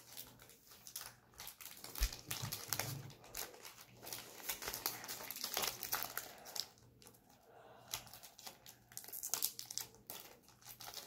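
Foil booster-pack wrapper crinkling irregularly as it is handled and opened.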